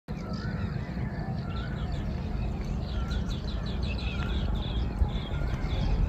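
Several birds calling: a short rising-and-falling whistle repeated every second or so over many quick high chirps. A steady low rumble of wind on the microphone runs underneath.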